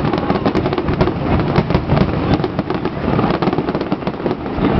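Fireworks finale barrage: aerial shells bursting in quick, overlapping succession, with many sharp bangs merging into continuous crackling.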